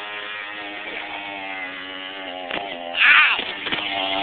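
Mini bike's small engine running at a steady, buzzing pitch while being ridden, with a sudden loud burst about three seconds in.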